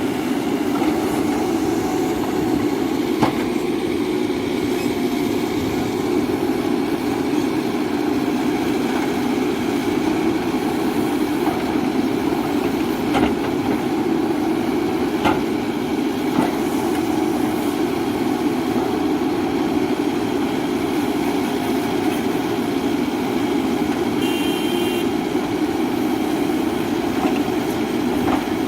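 Mahindra backhoe loader's diesel engine running steadily under work, with a few sharp metallic knocks and a brief high tone about 24 seconds in.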